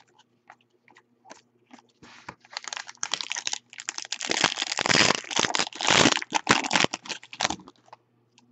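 A foil Bowman Chrome trading-card pack being torn open and its wrapper crinkled: a few light clicks at first, then a dense crackling rustle lasting about five seconds before it stops.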